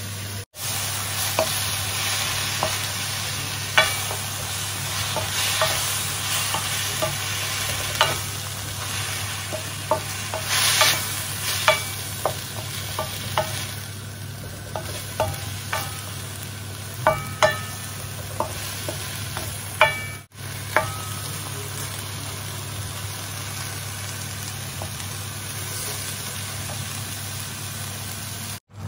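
Broccoli and onion sizzling in a hot wok as they are stir-fried, with a wooden spoon scraping and knocking against the pan in many short, sharp clicks.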